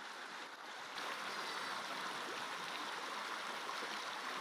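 A steady rushing noise that steps up in level about a second in.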